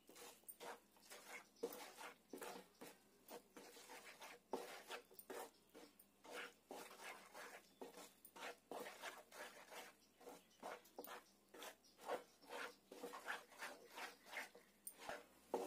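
Faint, repeated scraping strokes of a wooden spatula against a nonstick frying pan as it stirs a thick paste of milk powder, sugar, milk and ghee.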